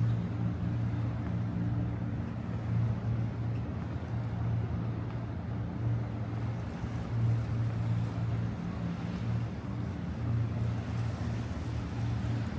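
Steady low mechanical hum, like a motor or machinery running, that swells and fades slightly over a wash of background noise.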